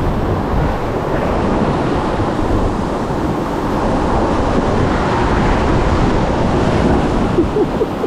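Rushing whitewater churning around a river rapids ride raft, mixed with wind buffeting the microphone; the rush swells a little past the middle.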